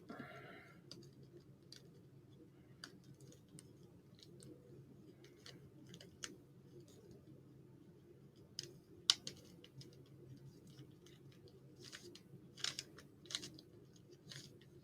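A Rubik's Cube being turned by hand, its layers giving irregular faint clicks and clacks. A few sharper snaps come around the middle and again near the end, over a steady low hum.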